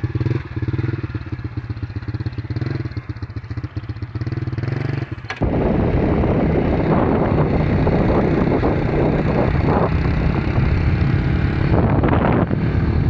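Motorcycle engine running with a steady low drone. About five seconds in, the sound changes suddenly to a louder, rough rushing noise.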